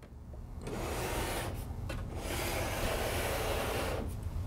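Plastic and glass panels of an LED display case rubbing and scraping against the frame as the top piece is fitted on, in two stretches of scraping noise, the second and longer one starting about two seconds in.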